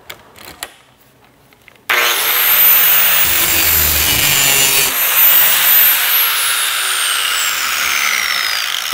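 Handheld angle grinder switched on about two seconds in and grinding the edge of a steel lawn mower blade clamped in a sharpening jig. A loud, steady grinding noise with a very high whine that dips in the middle and slides slowly downward near the end.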